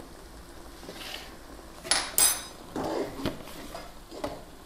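A spoon knocking and scraping against a cooking pot while spices go into the curry masala, with a couple of sharp ringing clinks about two seconds in and a few softer knocks after.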